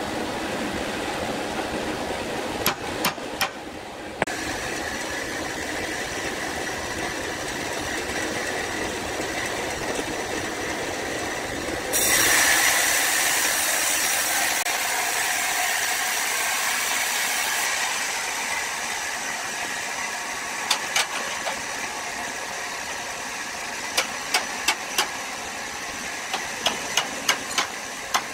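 Woodworking machinery running steadily. About twelve seconds in, a louder hissing noise starts and lasts about five seconds. Short sharp clicks come a few seconds in and in a quick series near the end.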